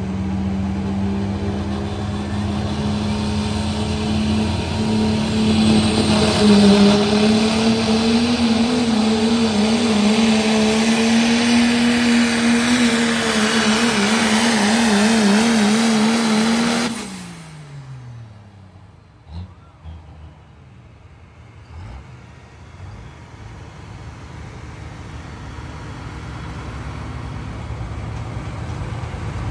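First-generation Dodge pickup's Cummins inline-six diesel running flat out under full pulling load, a loud steady drone that wavers near the end of the run. About 17 seconds in, the engine drops off sharply and winds down in pitch, leaving a much quieter stretch with a few knocks.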